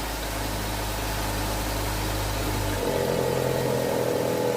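Nissan Almera's HR15 1.5-litre engine idling steadily while the automatic gearbox is cycled through its positions for a fluid fill. About three seconds in, the deep hum drops away and a steady, higher hum takes over.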